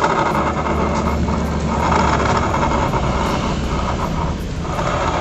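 Old Honda Vario scooter running with its rear wheel turning. A rough grinding noise from the rear CVT pulley area comes over a steady engine hum, the sign of a worn bearing there.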